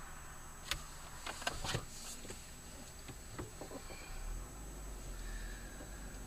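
A car driving, heard faintly from inside its cabin as a low steady hum, with a cluster of light clicks and ticks in the first few seconds.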